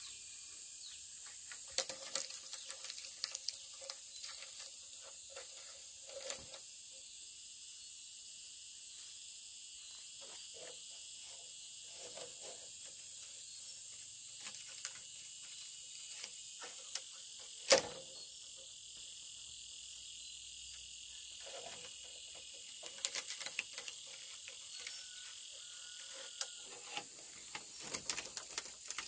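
Insects trilling steadily in the background, with scattered short clicks and rustles of handling and one sharp click about 18 seconds in.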